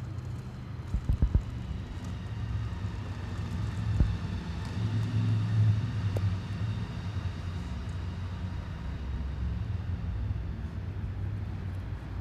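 Low, steady rumble of distant motor traffic, swelling about midway. There are a few sharp knocks near the start.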